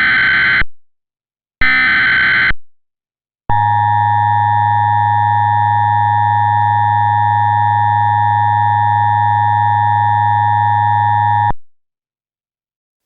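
Emergency Alert System header: the last two of three short screeching digital data bursts, about a second each, then a steady buzzing EAS attention tone held for about eight seconds that cuts off sharply. It is the signal that an emergency alert is about to be read.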